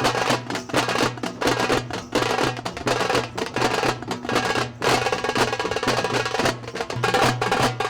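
Background music of fast, dense drumming over a steady low drone.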